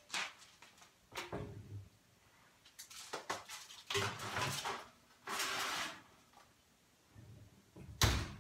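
A kitchen oven door is opened and a metal baking pan is slid onto the oven rack with metallic clatters and scraping. The oven door then shuts with a solid thump near the end, the loudest sound.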